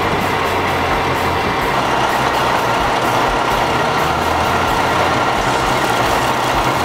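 Heavy dump truck running: a loud, steady mix of engine and mechanical noise.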